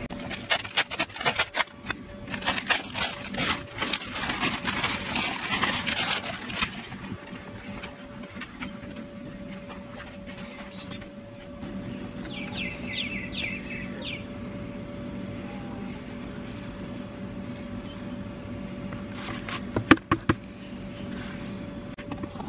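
Mushroom compost tipped from a plastic bag into a large plastic plant pot: dense rustling and crinkling of the bag and sliding soil for about the first seven seconds, then softer scraping and shuffling. A couple of sharp knocks come near the end.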